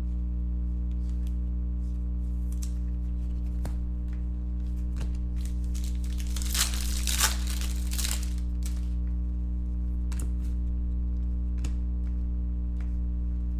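Foil wrapper of a Prizm basketball card pack being torn open and crinkled by hand, loudest for about two seconds midway, with scattered light clicks of cards and wrappers being handled. A steady low electrical hum runs underneath.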